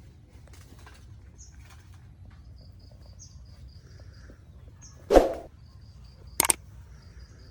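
Faint, high chirping repeated in quick, even runs over low outdoor background noise. It is broken by a sudden loud noise about five seconds in and a shorter sharp one about a second later.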